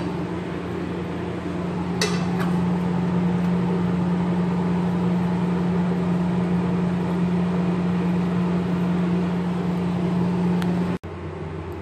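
Steady, loud electric hum of a kitchen appliance's motor, with a light clink of crockery about two seconds in.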